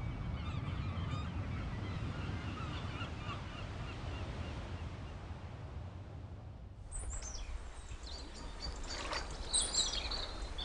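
Outdoor ambience of birds chirping over a steady low rumble, with sharper, higher calls near the end.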